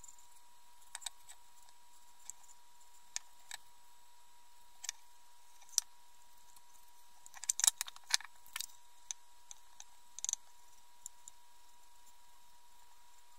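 Scattered light clicks and taps as a small wooden box and a paintbrush are handled and set against the table, with a quick cluster of clicks about halfway through, over a faint steady high tone.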